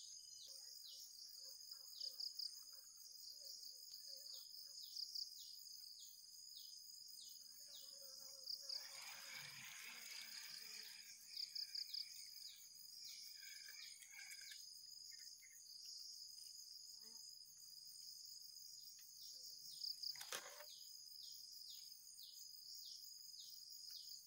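Faint insect chorus: a steady high-pitched buzz with short chirps repeating every second or so. A brief rustling noise comes about nine seconds in, and a single sharp click near the end.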